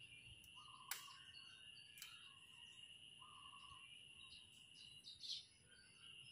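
Bonsai pruning shears snipping small branches: two sharp snips about a second apart, then a brief scratchy rustle near the end. Under them, a faint steady high whine and a few faint short chirps.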